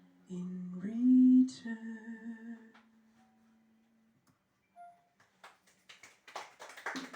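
A woman's unaccompanied voice humming the closing notes of the song, ending on a held note that fades out about four seconds in. Near the end, a quick irregular run of taps or claps.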